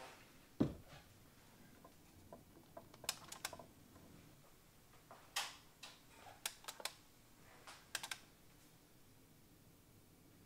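Faint clicks and clacks from a Panasonic RQ-DR9 portable Digital Compact Cassette recorder being operated while its cassette mechanism runs the tape to the lead-in. There is one sharper knock about half a second in, then small clusters of clicks every couple of seconds.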